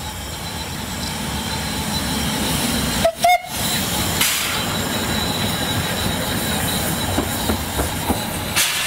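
750 mm narrow-gauge steam tank locomotive moving slowly as it runs around its train, with wind buffeting the microphone. A short whistle toot sounds about three seconds in.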